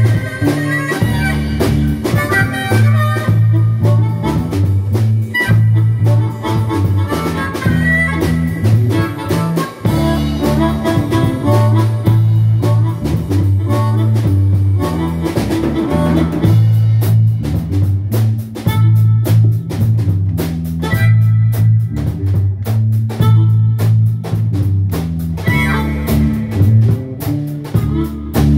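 Blues harmonica played cupped into a microphone, wailing melodic lines over a band with drums, electric guitar and a steady low bass line. The harmonica thins out about halfway through, leaving mostly drums and bass, and comes back near the end.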